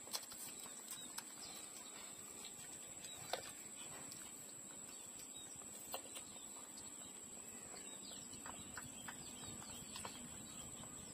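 Puppies nursing from their mother dog: faint sucking and smacking with a few sharper clicks scattered through, over a steady faint high-pitched tone.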